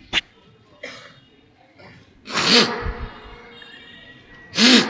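A man's sobbing: two sharp, breathy sobs with a catch of voice, about two seconds in and near the end, after a short click at the start.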